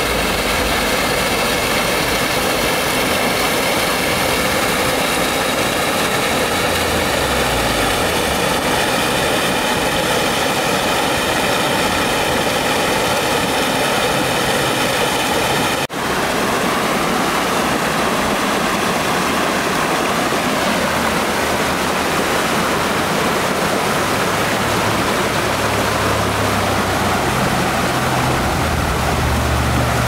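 Small waterfall and stream rushing steadily. The first half is water running over a shallow rocky streambed, then it changes abruptly to the falls splashing into a pool. A low rumble joins in near the end.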